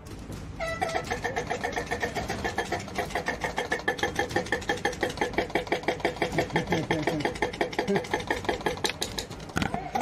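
Airsoft electric gun firing on full auto in one long continuous stream: a rapid, even mechanical clatter of the gearbox cycling shot after shot. It starts just under a second in and stops just before the end.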